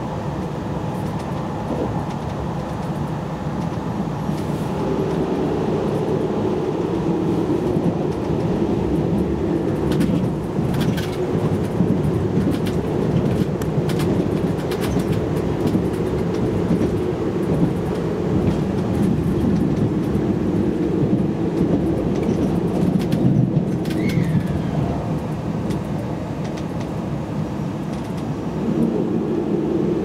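Inside the cabin of a JR Hokkaido 789 series electric limited express train running at speed: a steady rumble of wheels and motors on the track. A few clicks come through, and about two-thirds of the way in there is a brief, falling high squeal.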